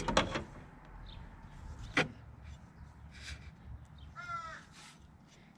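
Two sharp clicks, one right at the start and one about two seconds in, then a crow cawing once near the end.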